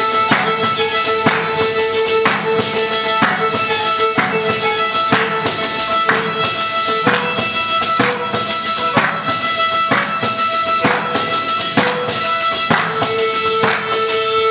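Live tarantella music for a tarantismo rite: a violin playing held melody notes over a frame drum (tamburello) beating a steady pulse, with a strong stroke about once a second.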